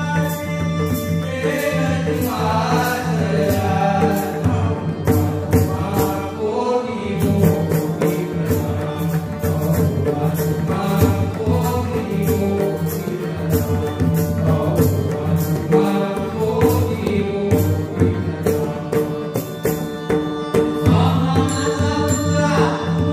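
Marathi devotional bhajan: a lead singer and chorus of men singing together, accompanied by steady pakhawaj and tabla strokes over a sustained drone.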